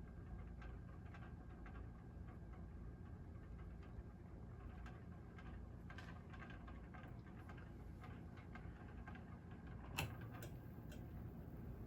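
Emerson Carrera Grande ceiling fan running quietly: a faint, steady motor hum with light, irregular ticking, and one sharper click about ten seconds in.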